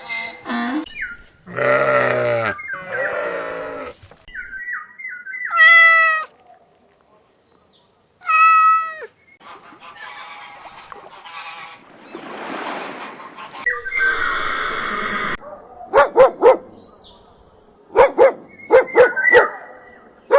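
A run of different animal calls, one short recording after another with gaps between them. Near the end comes a dog barking repeatedly in short, sharp barks.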